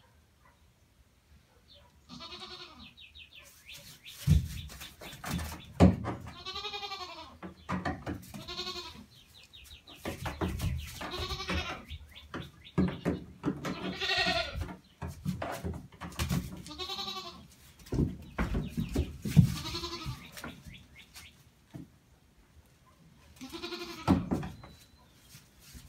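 Newborn goat kids bleating again and again, high wavering calls that rise and fall, one every couple of seconds. A few sharp thumps stand out as the loudest sounds.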